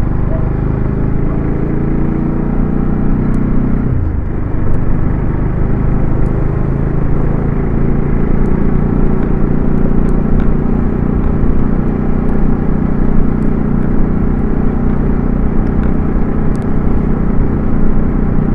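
Motorcycle engine running while riding along a street, heard from on the bike. The engine note falls about four seconds in, then carries on steadily.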